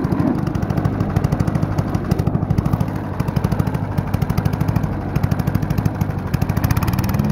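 A walk-behind gas lawn mower's small single-cylinder engine running steadily, with a rapid, even firing pulse.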